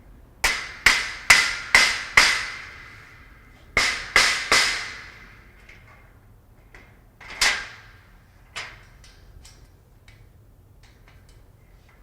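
Rubber mallet blows on a steel shelving frame, seating the shelf beams. Five quick strikes come in about two seconds, then three more, each leaving a short metallic ring, then one single blow and a few light taps.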